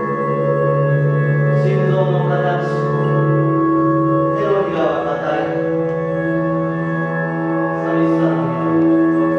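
Ambient music played live on keyboard and electronics: many held tones layered into a steady drone, with brief swells of hiss about two, five and eight seconds in.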